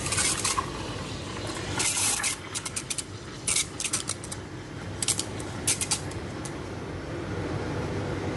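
Espresso machine steam wand steaming milk in a stainless steel pitcher: a series of short, sharp hissing bursts as the tip draws air into the milk, giving way near the end to a steadier, lower hiss.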